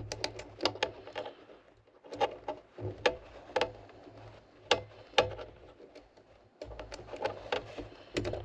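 Irregular small clicks and taps of a screwdriver and wire terminals being worked on a sawmill key switch, with a low hum that comes and goes underneath.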